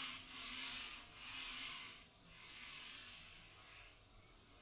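Sandpaper on a hand-held wooden sanding block rubbed back and forth along a wooden board: a rasping hiss with each stroke, about three strokes, the last slower and softer, then it stops about four seconds in.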